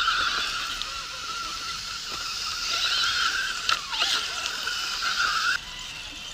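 Electric motor and gears of a radio-controlled crawler truck whining steadily as it climbs, then cutting off suddenly about five and a half seconds in when the throttle is released.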